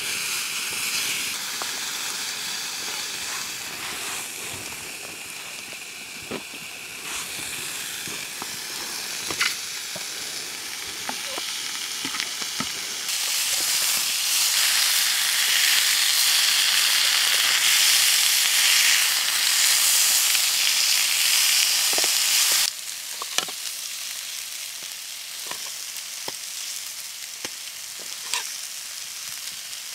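Steak, asparagus and sausages sizzling in two frying pans set directly on a campfire, with a few small clicks. The sizzle swells louder about halfway through and drops suddenly a few seconds later.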